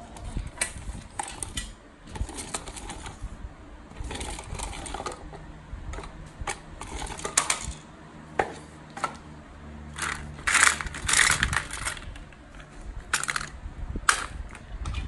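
Small toy cars being handled: hard plastic clicking, clacking and rattling against a wooden board and other toys, as a string of short irregular knocks with denser bursts of rattling in the latter part.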